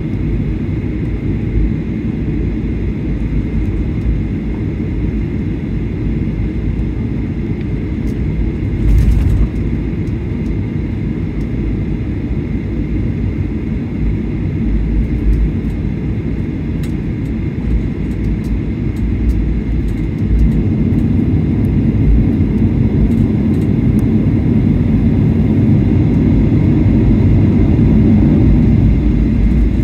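Cabin noise of a Boeing 737-800 taxiing: a steady low engine and rolling rumble with a faint steady whine, one short thud about a third of the way in, and the rumble growing louder in the last third.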